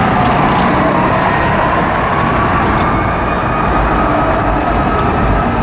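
Fire apparatus siren holding a high tone that slowly drops in pitch as the trucks pull away, over the steady rumble of heavy-vehicle engines and traffic, which deepens near the end.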